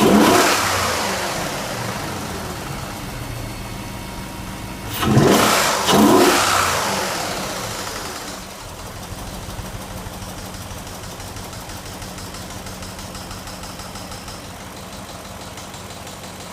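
BMW X5 engine revved at the start and blipped twice about five and six seconds in, each time falling back to a steady idle. The engine has a knock whose cause is unknown.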